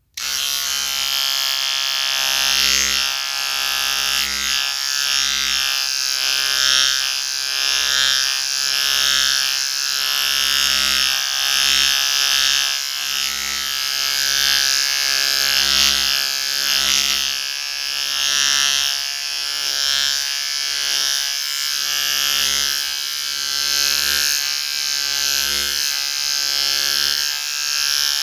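Electric shaver switching on and running with a steady buzz. Its loudness swells and dips every second or two.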